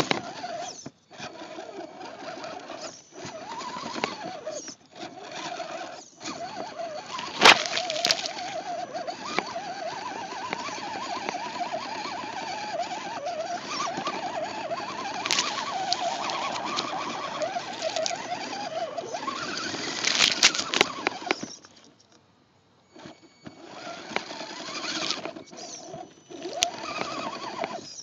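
Electric motor and geared drivetrain of an Axial SCX10 RC crawler whining as it drives through swamp water and weeds, the pitch wavering up and down with the throttle over a splashing hiss. A few sharp knocks as it climbs over obstacles, and a brief stop about three-quarters of the way through before it sets off again.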